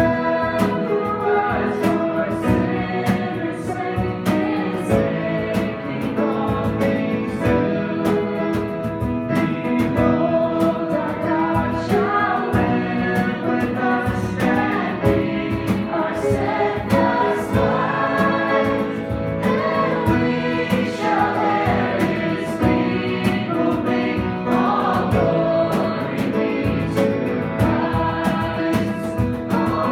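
Live worship music: several voices singing a song together over instrumental accompaniment.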